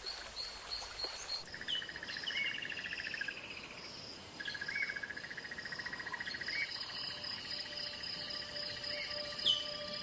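Natural dawn ambience of insects and birds. Repeated chirps and high steady trills give way, about a second and a half in, to a new mix of long buzzing trills that each start with a short upward note.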